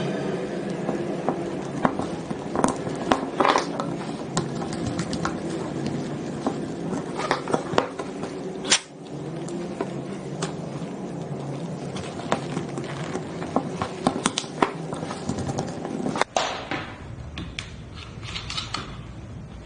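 Irregular clicks, taps and knocks of tools and small metal parts being handled while an electric die grinder is taken apart and its bearing replaced, with a couple of abrupt cuts.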